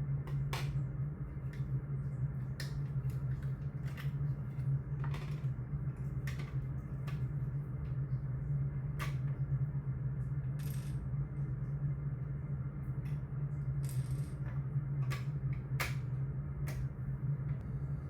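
Irregular plastic clicks and light knocks, about a dozen, from the dust container and filter parts of a Tefal Compact Power XXL vacuum cleaner being handled, over a steady low hum.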